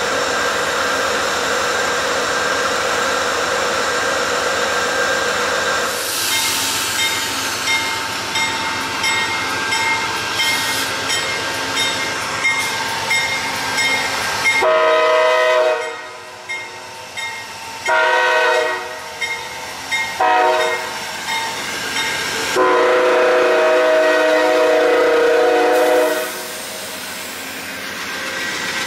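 Amtrak GE Genesis diesel locomotive passing with its wheels clattering over the rails, then sounding its air horn in four blasts, long, long, short, long: the standard signal for a road grade crossing.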